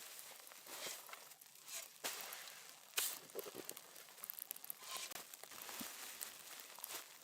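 Irregular rustling and crinkling with sharp clicks, the loudest about three seconds in.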